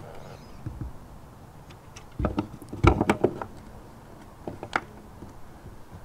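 Lada Vesta's plastic fuel filler cap being screwed back into the filler neck: a handful of scattered plastic clicks and knocks, the loudest cluster about three seconds in.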